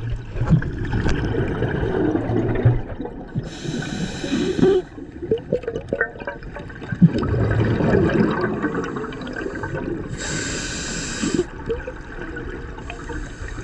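A scuba diver breathing through a regulator, heard underwater: long bubbling rumbles of exhaled air, broken three times by a short hissing inhalation.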